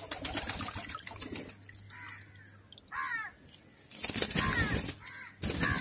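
Water splashing and dripping in a plastic tub as a wet pigeon is lifted out of its bath, loudest in a burst of splashing about four seconds in. A bird calls several times in the background.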